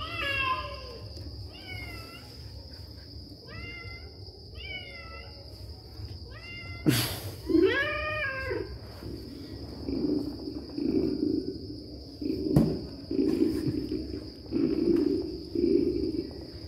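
Recorded cat meows played from a speaker hidden inside a cardboard box, several meows one after another in the first half, followed by a run of lower pulsing sounds about once a second. Crickets keep up a steady high chirring throughout.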